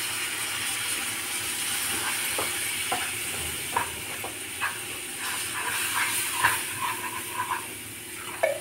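Water poured into a hot non-stick frying pan of fried masala paste, hissing and sizzling as it hits the oil. The hiss eases off after a few seconds, with scattered pops and clicks as the paste is stirred with a wooden spatula.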